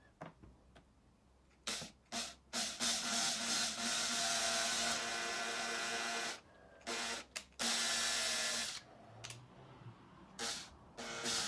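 Cordless drill running in a few short triggers and two longer steady runs of a few seconds, drilling holes into plywood through the holes of steel drawer slides.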